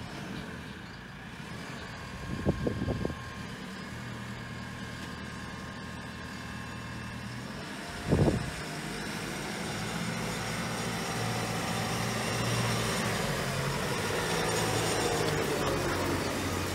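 JCB 540-140 telehandler's diesel engine running, growing louder over the second half as the machine comes closer. A few brief knocks sound about two and a half seconds in and a single louder one about eight seconds in.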